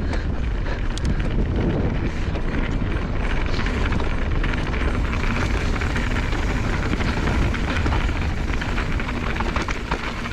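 Mountain bike riding along a dirt trail: tyres rolling over the ground with frequent small clicks and rattles from the bike, and steady wind rushing over the camera microphone.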